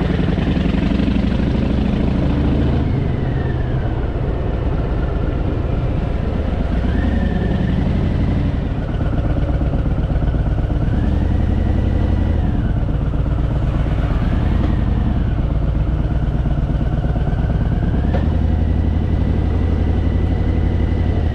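Harley-Davidson Fat Boy V-twin engine running under way, its pitch rising and falling several times as the revs change.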